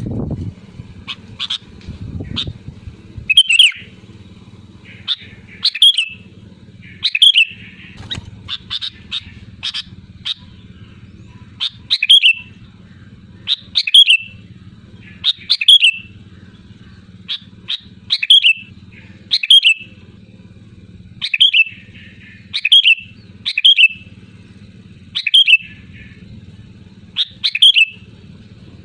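Sooty-headed bulbul (kutilang) calling loudly and repeatedly, short sharp phrases about every one and a half to two seconds, over a steady low hum.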